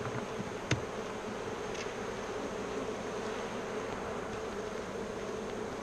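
Honeybees buzzing steadily in a constant hum around an open hive, with one short knock just under a second in.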